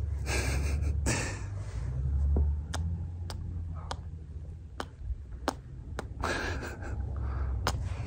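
Close-up soft rustling of a hand stroking a greyhound's fur, with a steady low rumble and about eight light, sharp clicks scattered through.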